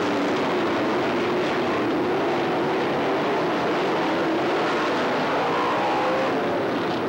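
A pack of dirt-track race cars' engines running at speed together, a loud, steady drone with engine pitch shifting as cars pass.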